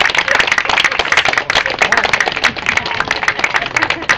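A small group of people applauding, many quick, overlapping hand claps.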